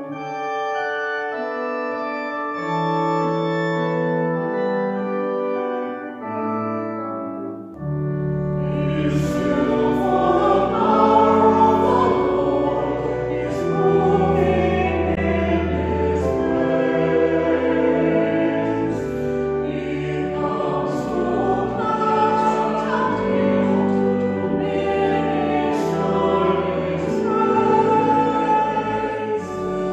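Choral music: voices singing slow, sustained chords. About eight seconds in, a deep bass comes in and the sound grows fuller.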